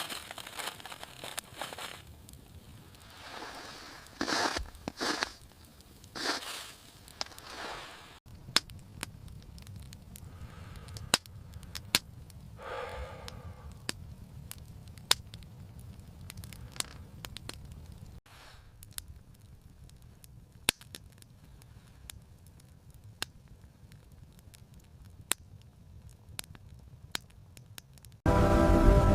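Rustling and crunching for several seconds, then scattered sharp crackles and pops over a low rumble. Music comes in loudly near the end.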